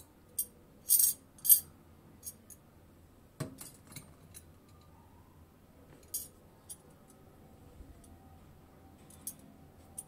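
Zinc-alloy western belt buckles and buckle parts clinking and clicking against each other and the tabletop as they are handled, in a series of short, sharp metallic clicks, loudest about a second in.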